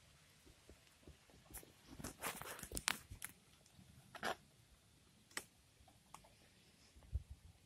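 Faint scattered knocks and clicks close to the microphone: a quick cluster about two seconds in, then single knocks at about four and five and a half seconds, and a couple of soft low thumps near the end.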